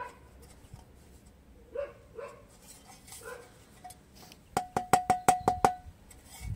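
A thin aluminium license plate tapped by hand about eight times in quick succession, about four and a half seconds in, each tap giving a short metallic ring. A dog barks a few times before the taps.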